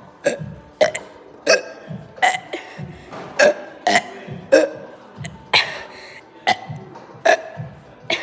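A person burping over and over: about a dozen short burps in quick succession, roughly one every half second to a second.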